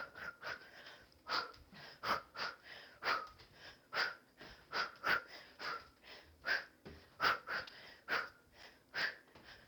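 A person breathing hard from exertion, with short, sharp exhales repeating about twice a second, often in pairs.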